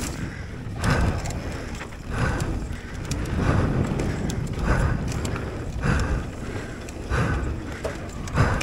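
Mountain bike riding a dirt trail, heard from an action camera on the bike or rider: steady wind and trail rumble with scattered small rattles and clicks, and a rhythmic rushing sound about once a second.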